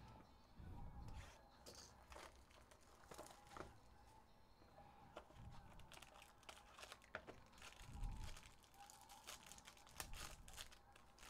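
Faint crinkling and tearing of a foil trading-card pack and its box wrapping being opened by hand, in scattered crackles, with a few soft thumps of handling.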